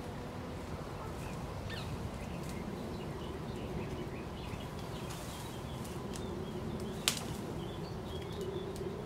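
Outdoor ambience: small birds chirping faintly and often over a steady background hiss and low hum. A single sharp click about seven seconds in is the loudest sound.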